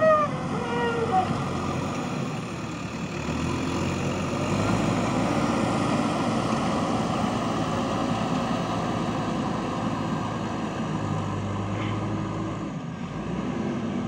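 JCB 3DX backhoe loader's diesel engine running steadily as the machine drives and manoeuvres over loose soil, its level rising a little partway through. A few short, falling squeaks sound right at the start.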